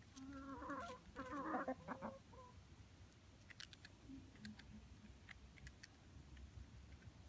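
Chicken clucking in a quick run of short calls over the first two seconds or so, then a few faint clicks.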